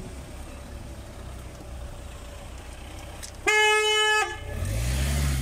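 A single steady car horn toot, under a second long, about three and a half seconds in, over a low traffic rumble. Near the end a vehicle engine hum rises and then falls in pitch.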